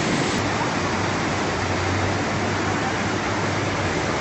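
Steady rushing of floodwater, with a low steady hum underneath.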